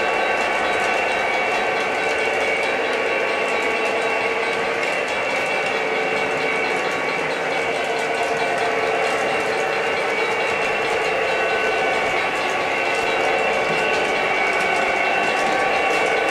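O gauge model EMD GP30 diesel locomotives running steadily on three-rail track: a continuous diesel engine drone from the locomotives' electronic sound system, over the whir of their motors and a fine, rapid clatter of wheels on rail.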